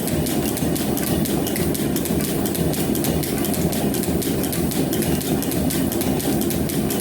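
Metal planer running steadily, taking a final pass on a steel bar: a continuous machine drone with a rapid light ticking.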